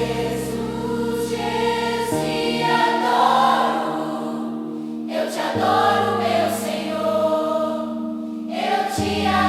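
Slow Christian worship music: held chords that change about every three and a half seconds, with wordless choir-like singing over them.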